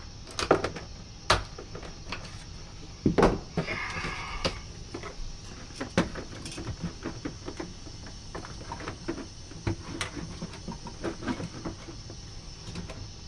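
Clicks and knocks of a plastic recessed dryer vent box being handled and pushed into a wall opening between wooden studs, with a brief squeak about four seconds in.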